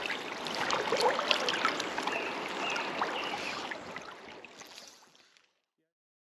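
Creek water running and rippling with small splashes, fading out about five seconds in to silence.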